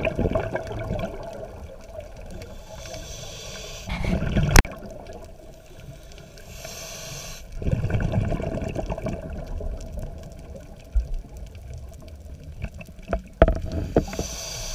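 Scuba breathing through a regulator underwater, with the hiss of each inhale and the bubbling rush of each exhale, about three breaths in turn. A few sharp knocks, one around the middle and one near the end.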